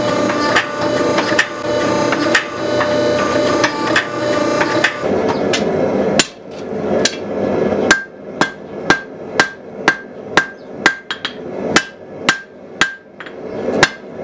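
Hand hammer striking a glowing steel knife blank on an anvil, drawing the blade out: sharp ringing blows, about two a second, through the second half. Before that a steady machine hum with knocks in it, the hydraulic forging press's pump running.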